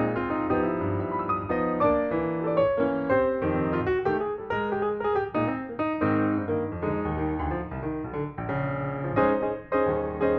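Background piano music, notes struck one after another at a steady pace.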